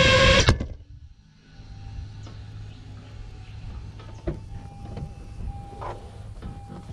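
Quadcopter motors on a 5-inch FPV drone whining steadily, then stopping abruptly with a click about half a second in. Afterwards a low steady hum remains, with scattered clicks and a high beep that comes and goes.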